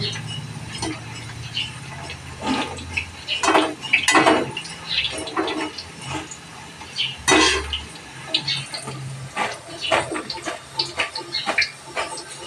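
Gathiya dough frying in hot oil in a steel wok, a steady sizzle. Metal ladle and strainer scrape and knock against the wok and pans several times.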